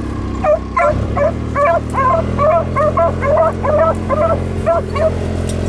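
Beagles baying on a rabbit's trail: rapid, repeated short barks, about three a second, starting about half a second in. Underneath, the steady low hum of the Kubota utility vehicle's engine running.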